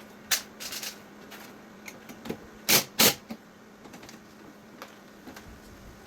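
A handful of sharp clicks and knocks from lawn tractor dash and steering wheel parts being handled and fitted, the two loudest close together about three seconds in, over a faint steady hum.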